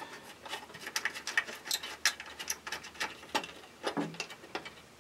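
Small irregular clicks, scratches and rustles of hands fitting a ground wire and its terminal onto a computer's metal card cage.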